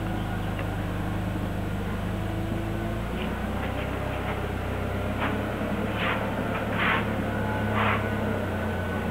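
Forklift engine idling with a steady low hum that shifts slightly about three seconds in. Several short hissing scuffs come in the second half.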